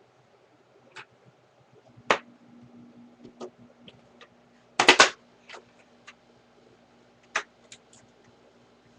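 Scattered clicks and knocks of the plastic housing parts of a Hoover Fold Away upright vacuum being handled and pushed into line, the loudest cluster about five seconds in. A faint steady hum sets in about two seconds in.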